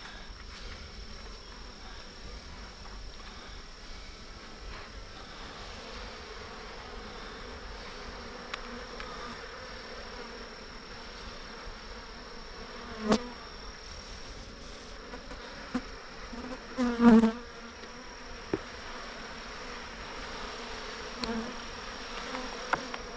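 A swarm of agitated honeybees buzzing steadily around a beehive that is being moved. A sharp knock comes about halfway through and a louder double knock a few seconds later, from the hive being handled.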